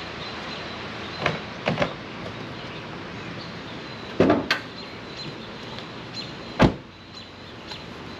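A few separate knocks and clunks over a steady background hiss: one a little over a second in, two in quick succession just after, a louder cluster a little past the middle, and the loudest single knock later on.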